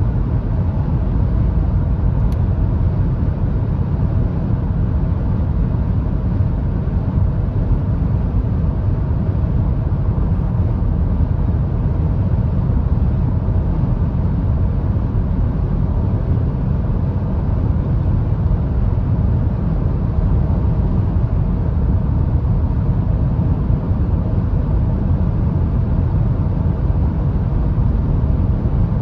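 Cabin noise of a Hyundai Tucson full hybrid cruising at about 130 km/h: a steady low rumble of tyres, wind and the 1.6 turbo petrol engine, which is running at this speed rather than the car driving on battery.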